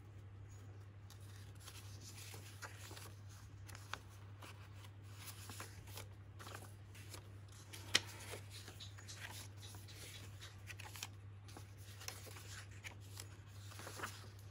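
Sheets of faux note paper rustling and sliding against each other as a stack is leafed through by hand, faint and irregular, with one sharper tap about eight seconds in.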